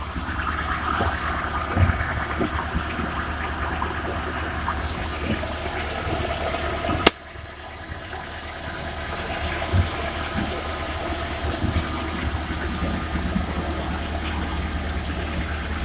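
VAZ-2101's engine running steadily in gear, turning the rear axle with one rear wheel jacked up and spinning freely, heard from below the car. The driveline carries the intermittent knock the owner is hunting for, which he takes for a rear axle-shaft bearing. A sharp click comes about seven seconds in, after which the sound is briefly quieter.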